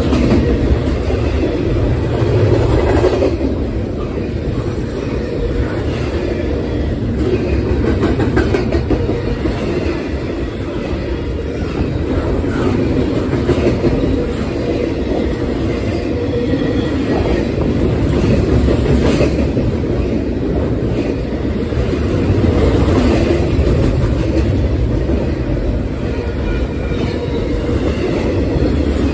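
Double-stack intermodal freight cars passing at speed close by: a steady, loud rumble of steel wheels on the rails, with clickety-clack over the rail joints.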